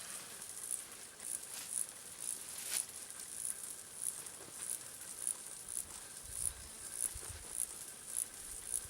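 Insect chirping steadily, a short, very high chirp repeated about twice a second, with some low rumbling about six to seven seconds in.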